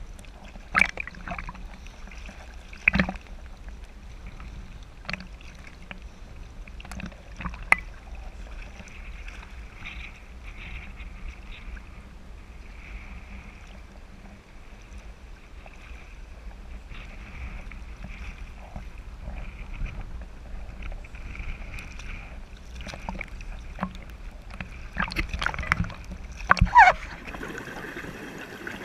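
Choppy sea water sloshing and slapping against a camera held at the surface, heard through its waterproof housing as a dull steady rumble with sharp splashes every few seconds and a run of louder ones near the end.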